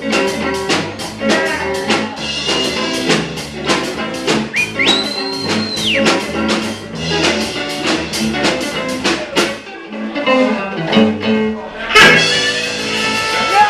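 Live band playing: acoustic and electric guitars over a drum kit with a steady beat. A high held note rings out about five seconds in, and a loud crash hits about twelve seconds in.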